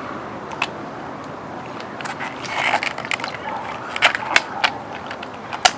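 Handling noises from a metal Altoids tin and a woven paracord case: scattered sharp clicks and short rustles as the tin is handled and fitted into the case, with the loudest click near the end, over a steady background hiss.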